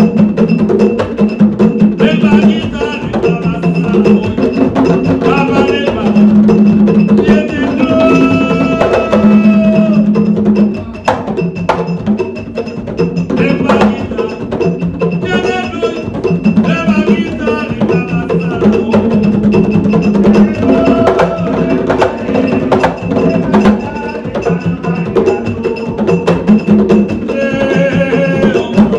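Live percussion-driven Haitian dance music: sharp clicking strikes and drums under a steady high ringing tone, with melodic lines coming in and out.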